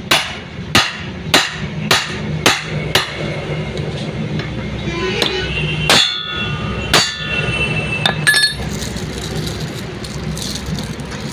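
Hammer striking metal: six sharp blows about half a second apart, then two more spaced blows with a metallic ring, and a few light clinks near the end.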